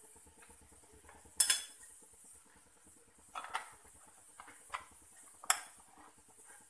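Metal spoon stirring onions and spice powder in a metal pot, clinking and scraping against the pot several times, the loudest knocks about a second and a half in and again near five and a half seconds.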